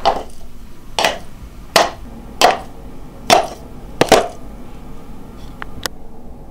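Six loud, heavy thuds at the pace of slow steps, about three-quarters of a second apart, the last one doubled, then two faint sharp clicks.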